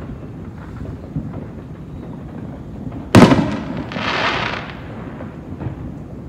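Fireworks: one loud, sharp bang about three seconds in, followed by about a second of hiss. Low rumble and faint pops from more distant fireworks run underneath.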